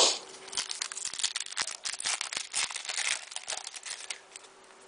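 Foil wrapper of a trading-card pack crinkling and tearing as it is opened, a quick run of small crackles and clicks that dies down near the end.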